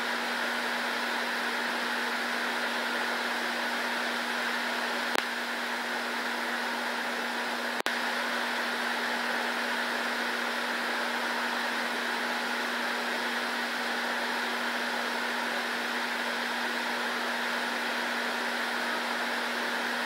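Steady whir of a running room fan, such as an air conditioner or air purifier, with a constant low hum underneath. Two brief clicks about five and eight seconds in.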